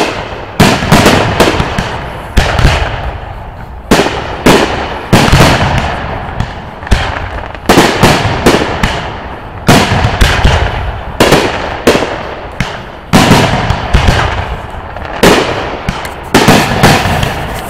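Aerial firework shells bursting one after another: well over a dozen sharp bangs, roughly one every second, each fading away before the next.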